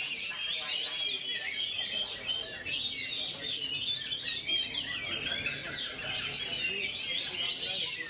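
Oriental magpie-robin (kacer) singing a fast, continuous rolling song of quick, varied chirps and whistles, with only very short breaks between phrases.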